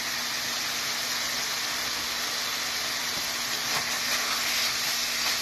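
Thin-sliced chicken breast sizzling steadily in hot oil in a frying pan, a constant hiss.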